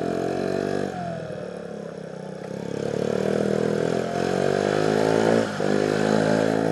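Kymco Agility 50 scooter engine running under way, with a freshly fitted cylinder. Its pitch climbs as the throttle opens and drops sharply when it is eased off, about a second in and again near the end.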